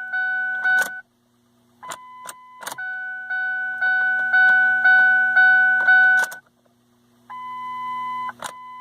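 Ford Focus dashboard warning chime beeping in pulsing tones, switching to a higher pitch and back, while the ignition key is worked, with sharp clicks and keys jangling against it.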